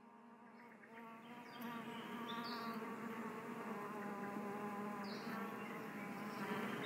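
An insect buzzing steadily, fading in from silence about a second in and holding a low, even hum.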